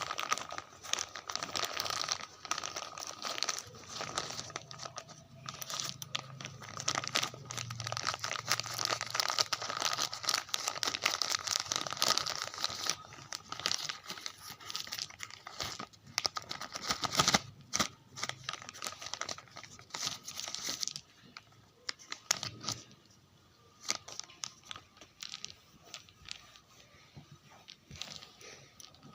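Packaging being crinkled and torn open by hand, a dense run of crinkling and tearing that turns to quieter, scattered rustles and clicks about two-thirds of the way through.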